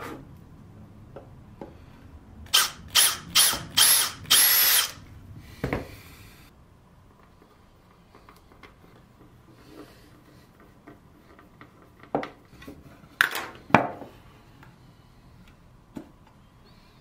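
Cordless drill run in five short bursts into the birch lid of the chest while the clasp hardware is fitted, the last burst the longest. Quieter hand-screwdriver and handling sounds follow, then a few sharp clicks or knocks near the end.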